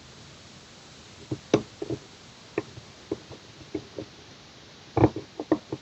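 Irregular small clicks and taps of a disc detainer pick turning the discs inside a Cordo disc detainer bicycle lock, with a quick cluster of clicks about five seconds in.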